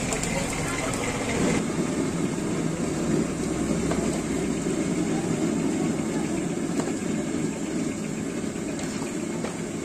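Strands of gram-flour sev deep-frying in a large iron kadai of hot oil: a steady, dense bubbling sizzle.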